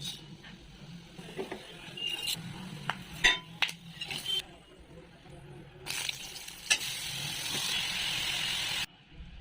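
Brinjal pieces frying in hot oil in a pan: a spatula clinks against the pan several times, then a steady sizzle for about three seconds that cuts off suddenly near the end.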